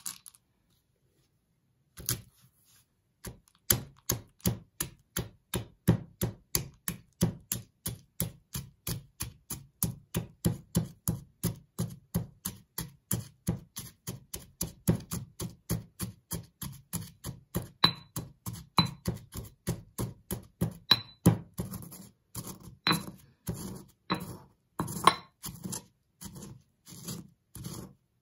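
Stone pestle pounding fish-shaped crackers in a stone mortar, crushing them to crumbs: a steady run of knocks, about two to three a second, starting about two seconds in and turning less even over the last several seconds.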